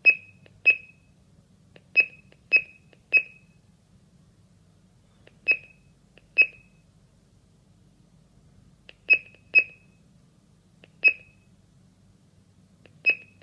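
Keypad of a GS G90 GSM alarm host beeping at each key press while a phone number is keyed in: about eleven short, high beeps at irregular intervals, some in quick pairs.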